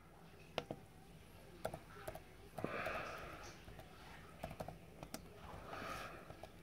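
Faint, irregular key taps on a laptop keyboard as a short search is typed, with a soft hiss twice in between.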